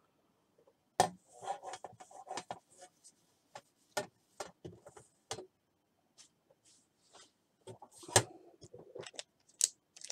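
Small craft items being handled and set down on a table: an irregular run of clicks and knocks with short rustling scrapes, the loudest knocks about a second in and about eight seconds in.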